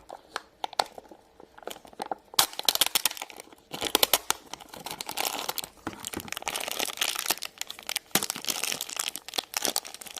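Plastic toy packaging of a Num Nums Cup Surprise being torn open and crinkled by hand: a few light clicks at first, then steady crackling from about two seconds in.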